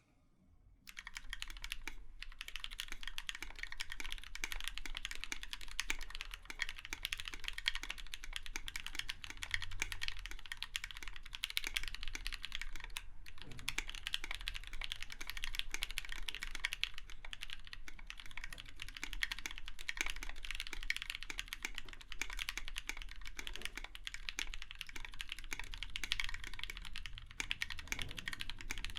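Continuous typing on a KBDFANS 5 Degree mechanical keyboard with Krytox 205g0-lubed Gateron Yellow linear switches (milky tops), an aluminium plate and NKPC blank keycaps: a steady run of keystrokes. It starts about a second in and pauses briefly about halfway.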